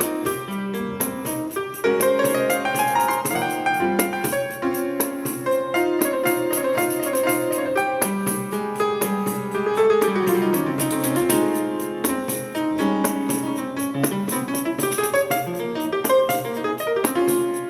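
Acoustic piano playing a jazz improvisation, with quick runs of notes rising and falling over a bass line. Fast light percussion ticks run underneath.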